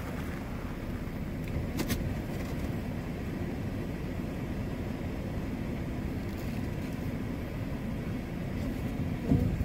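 Steady low rumble of a car's engine running, heard from inside the cabin, with a single sharp click about two seconds in.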